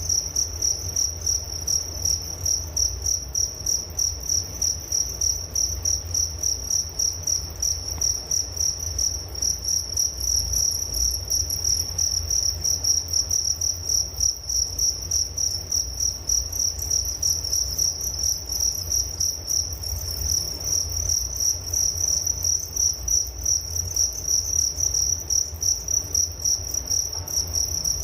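Crickets chirping steadily in a fast, even pulsing trill, one high-pitched tone, with a low rumble underneath.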